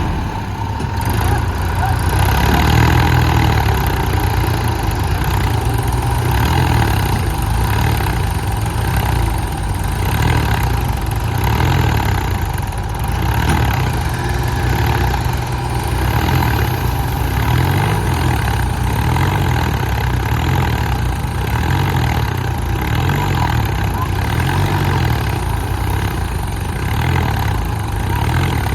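Heavy diesel engine running steadily, its note swelling and easing about once a second.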